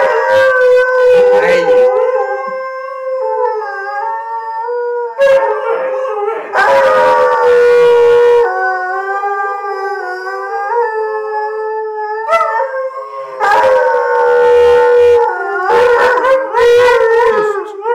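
A saluki and a borzoi howling together, long drawn-out howls that overlap and slide slightly in pitch, breaking off and starting up again several times.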